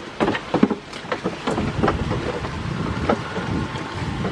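Goats biting and chewing watermelon close up, a run of irregular wet crunches and snaps, over a steady noisy background.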